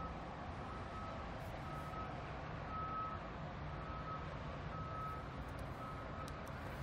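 A vehicle's reversing alarm beeping about once a second, six evenly spaced beeps of the same pitch, over a steady low hum.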